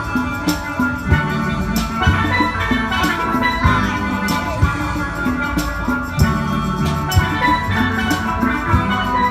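Steel band playing: a steelpan ensemble ringing out a melody and chords over a bass line, with drums keeping a steady beat.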